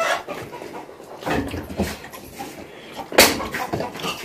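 Steel dishes and bowls knocking and clattering on a table during a meal, with a few sharp knocks, the loudest about three seconds in.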